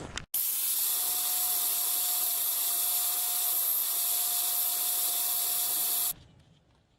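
Steady hiss with a faint steady tone underneath, starting abruptly and cutting off suddenly after about six seconds.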